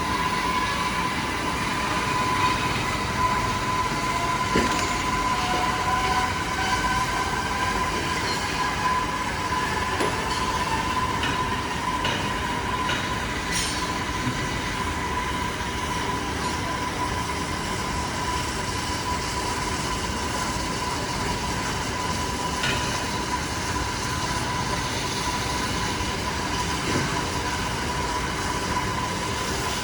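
Diamond wire saw cutting concrete: a steady high whine from the running wire over a continuous grinding rumble, with a few sharp clicks.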